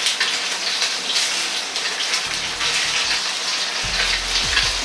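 Pork belly slices sizzling and crackling as they shallow-fry in their own rendered fat in a wok over high heat, the fat crisping.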